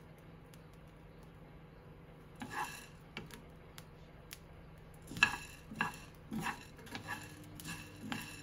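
A small wooden spoon stirring buckwheat groats in a dry, oil-free pan, scraping across the pan in regular strokes about every 0.6 s in the second half, with a few faint ticks of the last grains popping.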